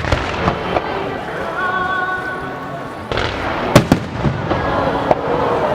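Starmine fireworks bursting: a series of sharp bangs over a continuous rumble of shells. The loudest cluster of reports comes a little past halfway, and a brief whistling tone sounds about two seconds in.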